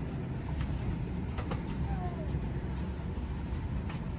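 Steady low hum of air and machinery inside a parked Boeing 737-800's empty cabin, with a few light clicks and knocks.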